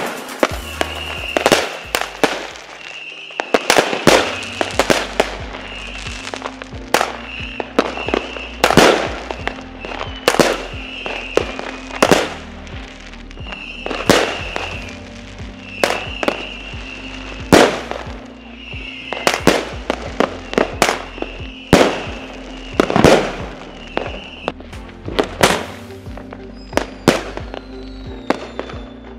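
Aerial fireworks going off in quick succession, sharp bangs about once a second and sometimes several close together, over background music.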